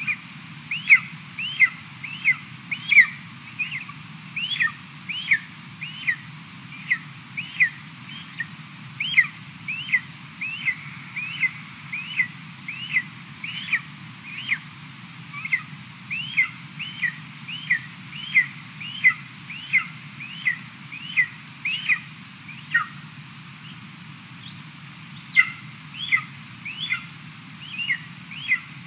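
Golden eagle chick's food-begging calls: a steady series of short, high, downward-slurred whistles, about one and a half a second, with a pause of about two seconds near the end.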